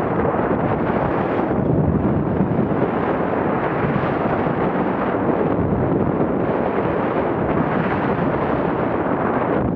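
Wind rushing and buffeting over the microphone of a Garmin VIRB action camera worn by a skier running downhill at about 35 to 40 km/h: a loud, steady, rumbling rush of noise.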